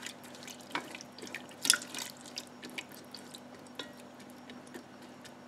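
Silicone spatula stirring heavy cream and grated parmesan in a Ninja Foodi's inner pot: soft, irregular liquid slops and light clicks against the pot, one of them louder about a second and a half in. A faint steady hum runs underneath.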